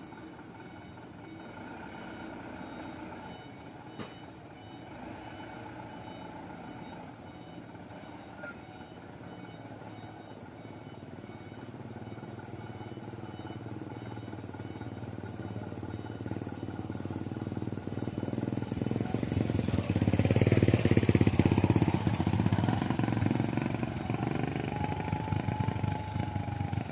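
Diesel truck engine running under load, growing steadily louder, loudest about three-quarters of the way through, then easing off.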